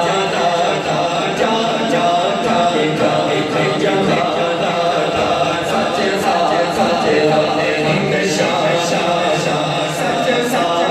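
Men's voices chanting devotional verses without instruments, amplified through microphones, with one man at the microphone leading and a second miked voice joining in.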